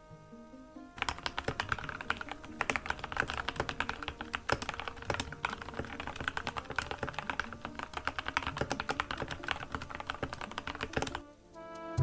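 Fast, continuous typing on a Dustsilver D84 mechanical keyboard with Gateron Red linear switches: a dense run of key clacks starts about a second in and stops shortly before the end. Soft background music plays under it.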